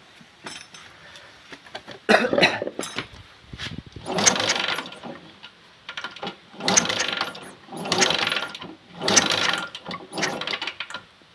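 Yamaha Jupiter MX engine being cranked over again and again without catching, in about six short bursts with pauses between. This is a hard cold start, with a spark plug that stays wet, which the owner thinks may come from low compression.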